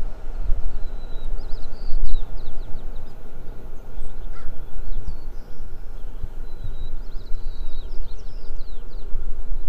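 Outdoor ambience: small birds chirping in two short runs of quick, high calls over a steady low rumble, which is the loudest part of the sound.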